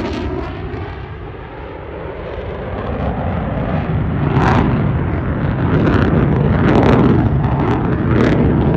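F-35 Lightning II jet, its single F135 turbofan engine producing a loud, deep roar as it flies a tight turn. The roar dips about a second in, then builds again with sharp crackles from about four seconds on.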